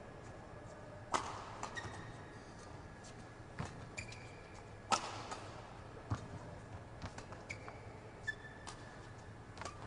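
Badminton rally: about half a dozen sharp racket hits on the shuttlecock, with short squeaks of court shoes on the mat between them.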